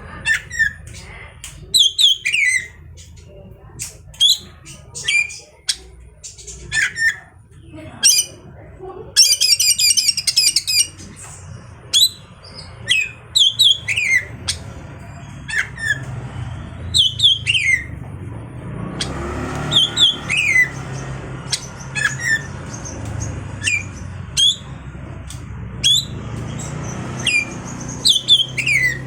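Oriental magpie-robin (kacer) song: a long series of short, sharp downward-sweeping notes repeated every second or so, with a fast, dense trill about nine seconds in.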